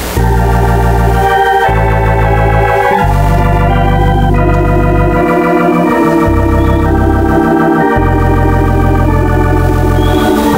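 Electronic organ music strikes up suddenly and plays held chords over a bass line that changes every second or two.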